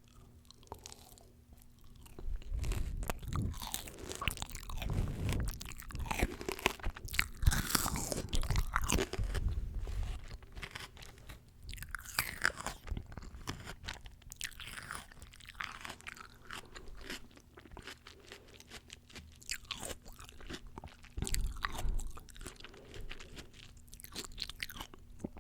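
Crisp fresh fruit bitten and chewed close to the microphone: dense crunching with wet clicks, heaviest in the first half and again in a short burst near the end.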